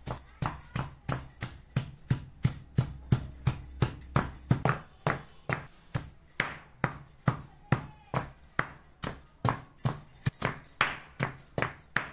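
Stone pestle pounding in a stone mortar, crushing fresh coriander, ginger and garlic into a paste: a steady run of dull knocks, about three strokes a second.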